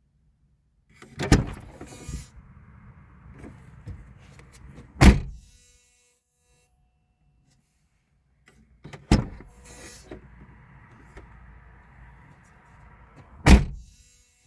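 A small electric motor in a 2003 Citroën Xsara runs twice, about four seconds each time. Each run starts and ends with a sharp clunk.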